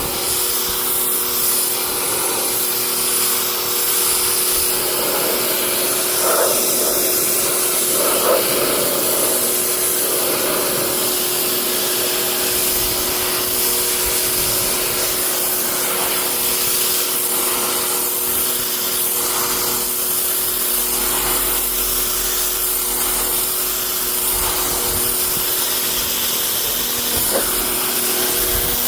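2,500 PSI pressure washer running steadily, its motor and pump humming under the hiss of the water jet blasting grime out of car carpet.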